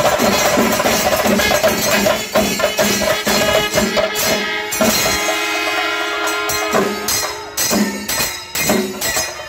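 Kerala chenda melam: chenda drums beaten with sticks together with jingling elathalam hand cymbals in a fast, even rhythm. About four seconds in, kombu brass horns sound a long held blast for a few seconds while the drumming drops back, and the drum strokes return strongly after it.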